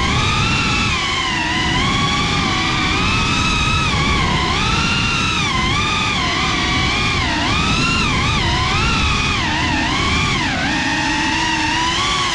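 GEPRC CineLog35 cinewhoop's brushless motors and ducted propellers whining in flight, the pitch continually rising and falling with throttle, over a low rush of prop wash and air.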